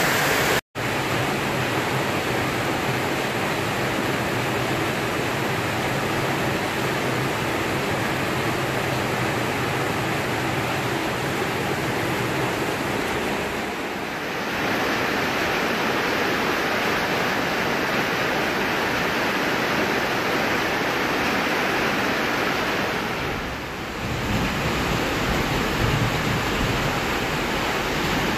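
Heavy rain drumming steadily on a corrugated metal roof, heard from inside the house, with a brief gap under a second in.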